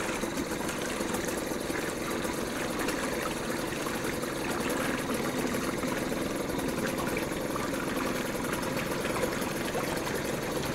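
Mercury 2.5 two-stroke outboard idling steadily in a tub of water, with the water churning and bubbling around its lower unit.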